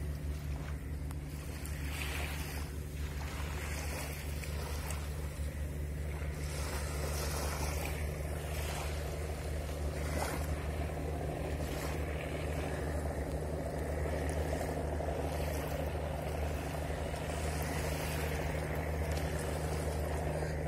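Steady low drone of a large ship's engines running as the cruise ship approaches, carried across the water. Small waves wash onto the beach, and wind gusts on the microphone every few seconds.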